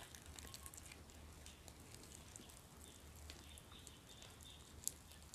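Very faint crackling and small clicks of fingers tearing flesh from a fried Indian mackerel, with one sharper click near the end.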